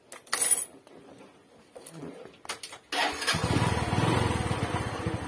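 Bajaj motorcycle engine starting about three seconds in after a few faint clicks, then idling with a steady, even pulse.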